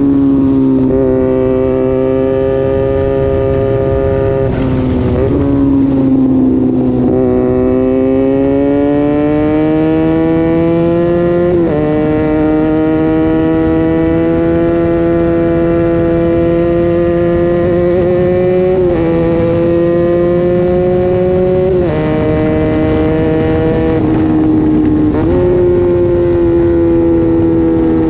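Sport motorcycle with an aftermarket exhaust running while ridden at mid revs. Its note climbs slowly and then steps abruptly up or down about six times.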